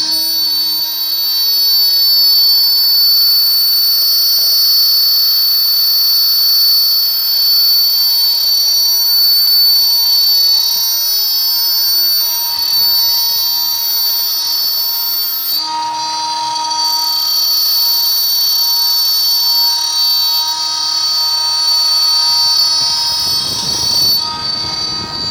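Motors of a CNC arm running, a steady whine of several high tones. The tones shift and lower ones join about two-thirds of the way through, and a rougher rumble rises near the end.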